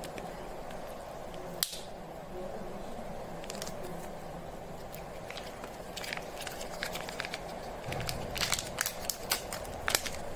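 Crinkling and crackling of foil and plastic chocolate-egg candy wrappers being handled and peeled, over a steady background hum. A single sharp click comes near the start; from about six seconds in the crackling picks up and is busiest near the end.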